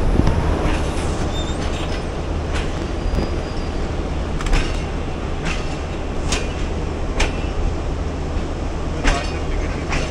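13 Up Awam Express passenger coach running along the track, heard from on board: a steady low rumble broken by sharp clacks of the wheels over rail joints, about one a second at uneven spacing.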